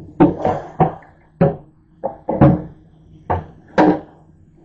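Metal toaster-oven tray knocking and clanking against a stainless steel sink while being rinsed: about eight irregular knocks, each ringing briefly.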